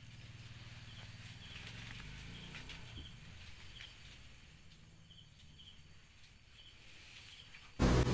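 Quiet background: a steady low hum with scattered faint, short high chirps. Music starts abruptly near the end.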